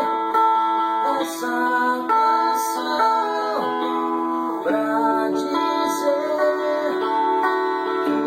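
Music: an acoustic guitar playing a song's intro, with sustained melody notes changing about every second.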